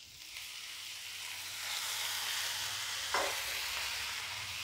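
Water sizzling in a hot frying pan of onion-tomato masala, the hiss building over the first two seconds and then holding steady. A single knock of the wooden spatula about three seconds in.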